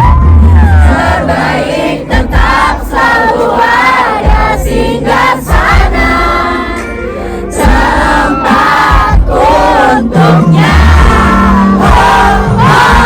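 Loud live concert music heard from within the audience, with a crowd singing along over a heavy bass line.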